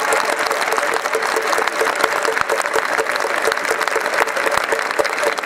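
Large stadium crowd applauding, dense clapping throughout. Beneath it runs a quick, even pulse of a mid-pitched tone, about five beats a second.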